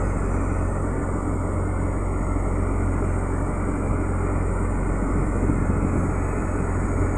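A vessel's engine running steadily while under way, a low drone with a steady hiss over it.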